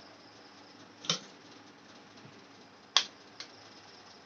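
Raw eggs being cracked with the blade of a kitchen knife: two sharp cracks about two seconds apart, the second the louder, with a lighter tick just after it.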